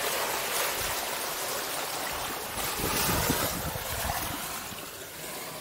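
Steady outdoor rushing noise with irregular low rumbles, swelling about three seconds in and easing off near the end.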